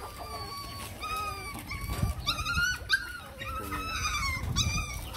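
Nursing puppies whimpering and squeaking, a string of high, wavering cries that overlap one another.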